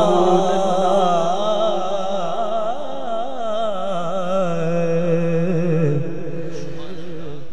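A man's solo voice singing a naat through a microphone, drawing out one long wavering, ornamented note that fades slowly, over a steady low drone.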